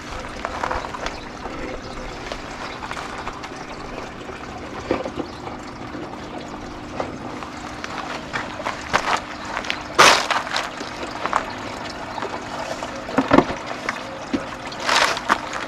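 Water trickling and pouring steadily through a hydroponic growing system, with a faint steady hum beneath. A few sharp knocks cut through, the loudest about ten seconds in.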